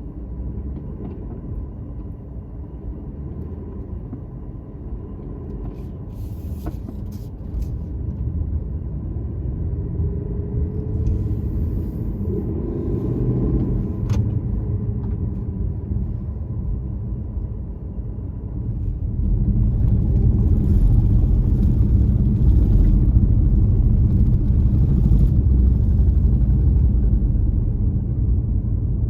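Low, steady rumble of a vehicle's engine and running gear, which gets louder about two-thirds of the way through.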